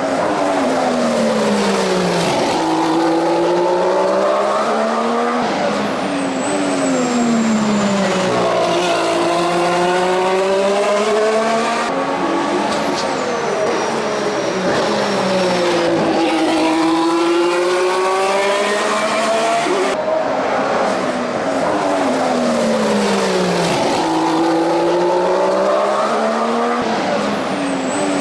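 2014 Formula One car's 1.6-litre turbocharged V6 engine accelerating up through the gears, then dropping in pitch as it brakes and downshifts for a corner, repeating about every four seconds.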